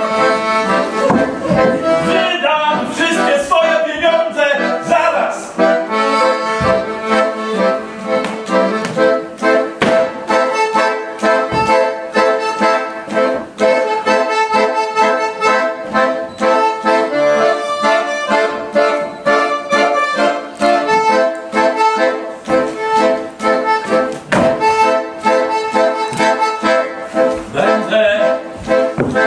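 Accordion playing a tune in a steady rhythm, with notes changing over held chords.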